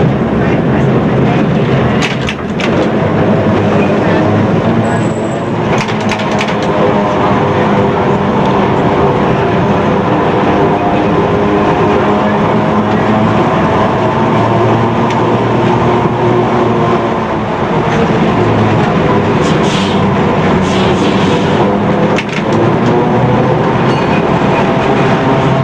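Lisbon electric tram running on street rails, heard from the driver's cab: a steady layered whine from the motors and gearing, with a few sharp clicks and rattles.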